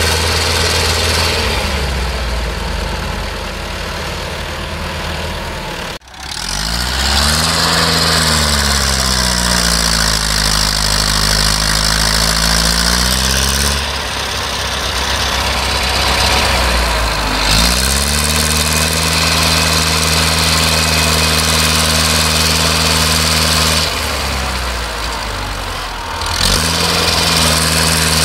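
Diesel farm tractor engines running, revved up and let fall back several times while straining to pull a tractor and trailer stuck in soft soil. A sudden break about six seconds in, after which the engine pitch rises and falls repeatedly.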